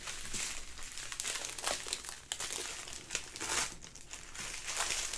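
Small clear plastic bags of diamond-painting drills crinkling and rustling unevenly as hands sort through them.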